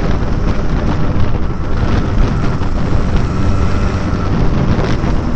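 Yamaha RX-King two-stroke single-cylinder engine pulling in fourth gear through an open 'pure sound' exhaust, with wind buffeting the microphone.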